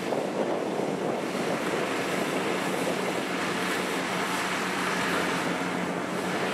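Kubota rice combine harvester running steadily while it cuts and threshes lodged rice: a constant engine hum under an even mechanical noise.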